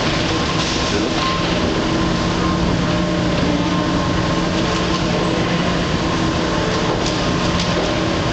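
Escalator running, heard while riding it up: a steady mechanical rumble with a constant hum, and a few light clicks near the end.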